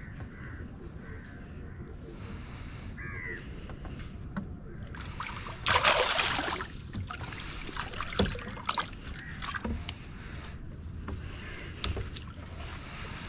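A loud splash at the water surface beside the canoe about six seconds in, lasting about a second, followed by smaller splashes and knocks as a landing net is worked in the water.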